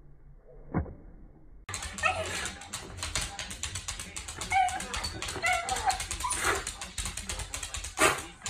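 A black-and-tan Shiba Inu whining and yipping in short, high cries that rise and fall, while it sits waiting at its food bowl. A louder cry comes near the end. Before the dog starts, about the first second and a half is quiet apart from a single click.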